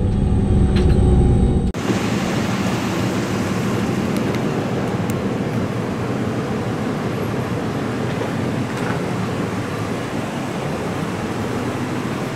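Steady outdoor wash of road traffic noise, even and without distinct events. It is preceded by a short stretch of parked airliner cabin hum with steady tones that cuts off abruptly about two seconds in.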